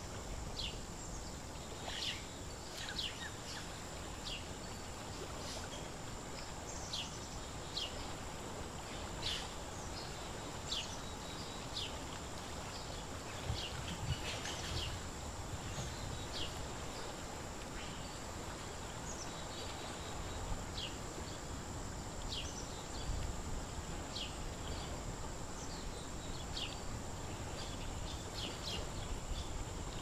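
Outdoor ambience: a steady hiss with many short, high, downward-sliding bird chirps, roughly one every second or two, over a thin constant high tone.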